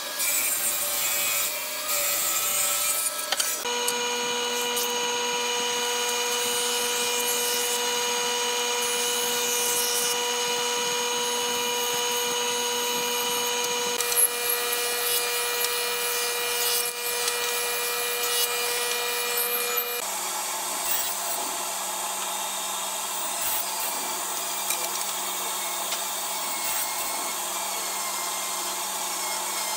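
Stationary woodworking machines running and cutting hardwood: a jointer, a thickness planer spitting out chips, and a table saw ripping strips. A steady motor hum sits under the hiss and rasp of the cutters, and the hum changes pitch abruptly a few times as one machine gives way to the next, around 4, 14 and 20 seconds in.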